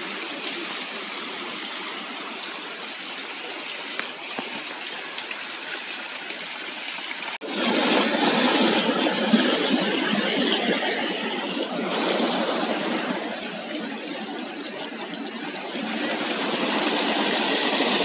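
Rushing stream water pouring over rocks, a steady wash of noise that cuts abruptly about seven seconds in to a louder, closer rush, which swells again near the end.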